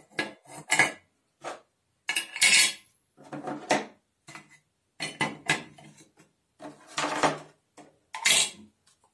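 Screwdrivers, pens and other small tools being dropped one by one into a small sheet-metal tool holder, clinking and clattering against its metal compartments in a series of short, irregular knocks.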